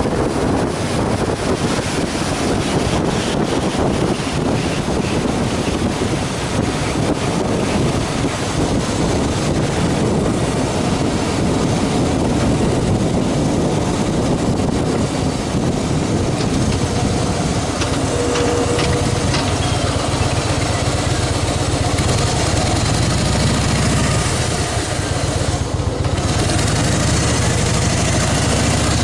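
Harley-Davidson Fat Boy V-twin engine running at highway speed under heavy wind noise on the microphone. About halfway through the wind eases and the engine's low note comes through more plainly as the motorcycle slows down an off-ramp toward idle.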